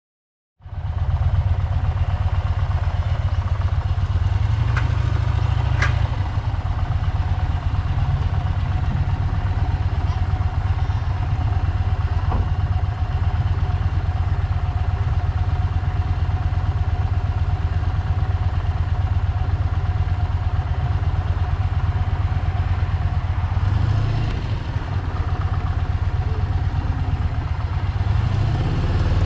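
Yamaha Bolt's air-cooled V-twin running steadily on the move, a deep, even exhaust pulse that cuts in suddenly about half a second in.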